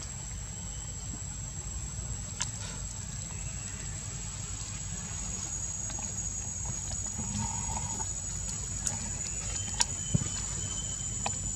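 Outdoor ambience: a steady high-pitched insect drone over a low rumble, with a few faint sharp clicks.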